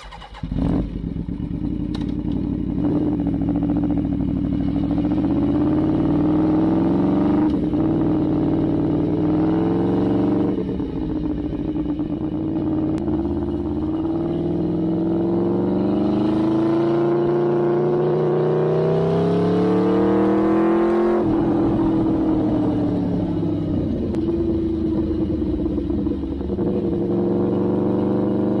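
Aprilia Tuono V4 1000 APRC's V4 engine through an aftermarket Arrow GP exhaust, ridden through the gears. The note climbs in pitch on each pull, drops sharply at each gear change or throttle close, and holds steadier near the end.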